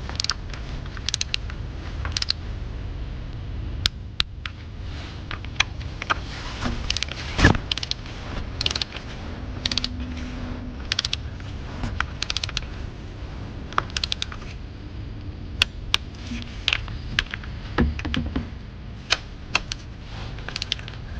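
Scattered sharp clicks of a ratchet wrench tightening bolts, with one louder click about seven and a half seconds in.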